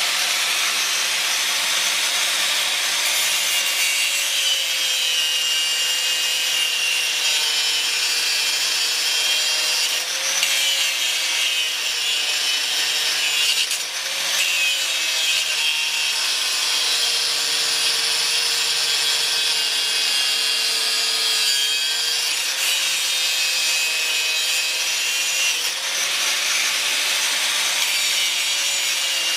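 DeWalt angle grinder running continuously, its disc grinding into the steel of a pickup truck's frame bracket. A steady motor whine that wavers a little in pitch sits under a harsh hiss of abrasion.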